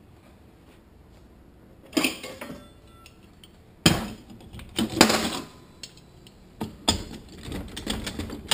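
Metal parts of a Toyota A340 automatic transmission clinking and knocking together as they are handled and fitted into the clutch drum assembly. There are about five irregular sharp clinks, starting about two seconds in.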